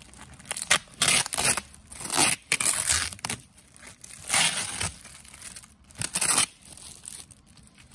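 Plastic wrapping on a parcel of books being torn and crinkled by hand, in a series of irregular rustling bursts about a second apart, the longest a little after two seconds in.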